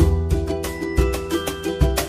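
Bright, upbeat ukulele background music over a steady beat.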